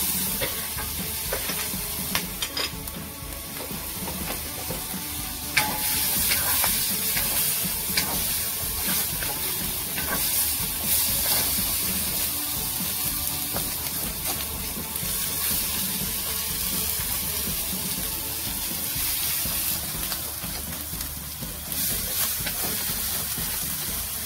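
Prawns and sambal paste sizzling in hot oil in a stainless steel honeycomb wok, stirred with a wooden spatula. The steady hiss of frying is broken by scattered clicks and scrapes as the spatula knocks against the pan.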